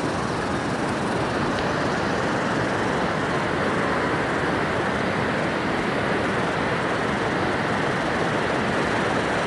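Surf washing onto a flat sandy beach, a steady, even rush of noise, with wind on the microphone.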